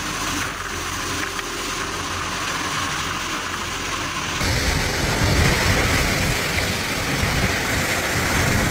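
Typhoon wind and heavy wind-driven rain: a steady rushing noise that turns louder and deeper about four seconds in.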